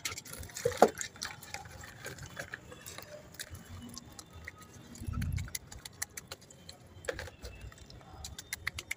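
Wet mud being smeared and patted by hand onto the outside of an earthen clay cooking pot, in a thick coat: soft wet smearing with scattered small clicks. There is a sharper knock about a second in and a short low rumble about five seconds in.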